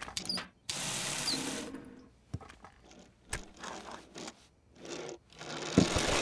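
Small toy car being pushed along a tabletop, its wheels whirring and rattling in several short runs, with a few small clicks.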